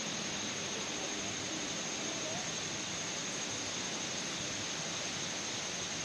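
Steady, even rush of water pouring over a waterfall.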